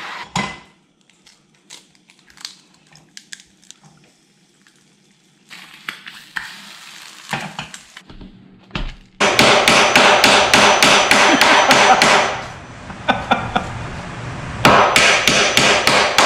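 A claw hammer striking wood in quick, even blows, about four a second, in two runs: the first starts suddenly about nine seconds in, and the second starts near the end. Before that there is only faint clicking and clatter.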